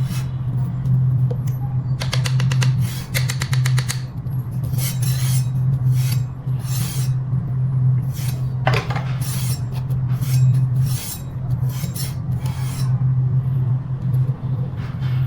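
Metal scraping in repeated strokes over a steady low hum: a scooter's brake disc rubbing against the caliper while the caliper is being adjusted. The disc is bent.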